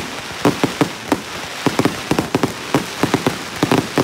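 Fireworks going off close by: a rapid, irregular string of sharp pops and bangs, several a second and some in quick clusters, over a steady hiss.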